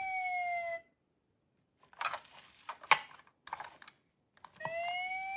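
Toy police car's electronic siren tone slides down in pitch and cuts off. Then comes a stretch of handling and rustling with one sharp click near the middle, and near the end the siren starts again with a rising pitch.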